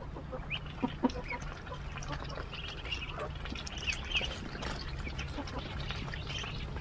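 Ducklings peeping in short, high, repeated calls while they feed on water spinach, with two sharp taps about a second in.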